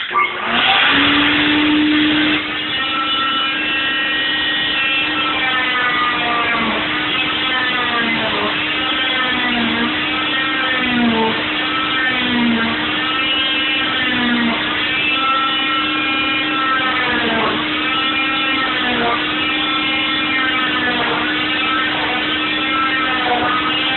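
Oscillating cast saw starting up and whining steadily as it cuts through a fiberglass arm cast, its pitch sagging and recovering again and again, roughly once a second, as the blade is pressed into the cast and lifted.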